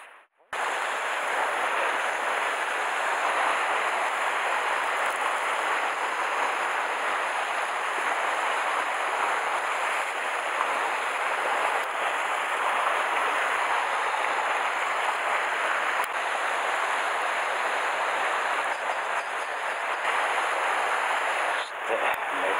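Rough sea surf washing and breaking over a rocky shore, a steady rushing that sets in after a brief gap at the start.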